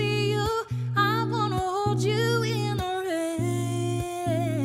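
A woman sings a drawn-out wordless melody, notes bending and a long held note falling near the end, over rhythmically strummed chords on a clean Fender Telecaster electric guitar.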